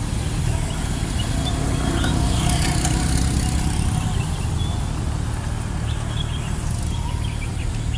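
Steady rumble of a moving vehicle heard from on board, engine noise mixed with wind on the microphone, with a faint hum in the middle.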